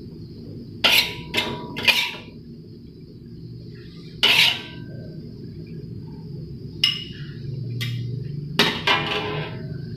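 Spatula scraping and clanking against a thin metal wok in about eight short, sharp strokes, a few close together, as the last of the stir-fry is scooped out. A steady low hum lies underneath.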